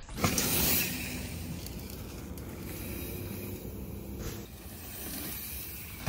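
Mountain bike landing a small drop on a dirt trail with a sharp thud about a quarter second in, then its tyres rolling over the dirt steadily.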